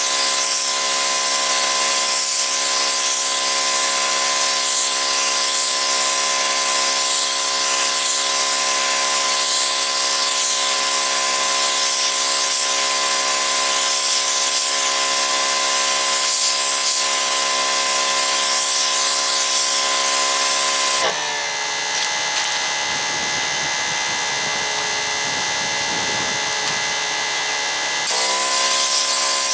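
Pressure washer running with a wet sandblasting attachment, spraying grit-laden water against a rusty steel drum: a steady motor whine under a loud hiss. About two-thirds of the way through, the whine drops in pitch and the sound gets quieter for several seconds, then it jumps back up near the end.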